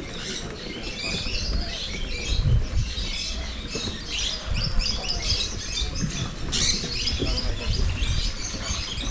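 A dense, continuous chorus of many small animals chirping and squeaking, short high calls overlapping without a break, with an uneven low rumble and a few thumps underneath.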